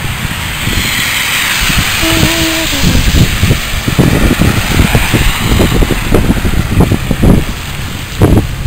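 Wind from a snowstorm, with a steady hiss and heavy gusts buffeting the microphone in low rumbling thumps. A short steady tone sounds about two seconds in.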